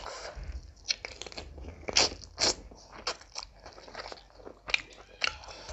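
Close-miked chewing of a mouthful of rice and meat curry eaten by hand: wet mouth smacks and crunches at an uneven pace, the loudest two about two seconds in.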